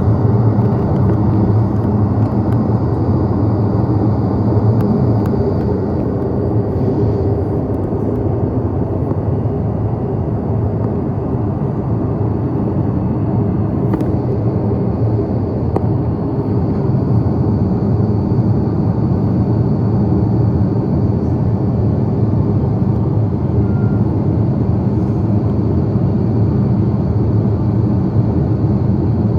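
Steady drone of cabin noise inside an Airbus A330-300 airliner, the hum of its engines and airflow.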